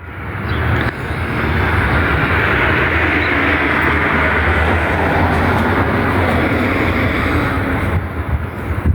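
A passing vehicle: a steady rushing noise with a low rumble that swells over the first couple of seconds, holds, and eases off near the end.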